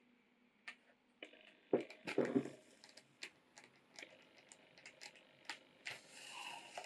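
Hand saddle-stitching a leather knife sheath in a wooden stitching clamp: a run of small clicks and taps from the needles and fingers on the leather and clamp, with a few louder knocks about two seconds in. Near the end the thread hisses for under a second as it is drawn tight through the leather.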